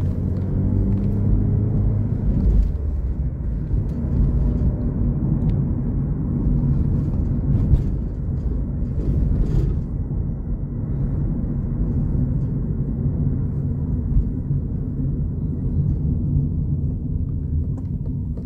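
Inside a moving car's cabin: a steady low rumble of engine and road noise as the car drives along a street.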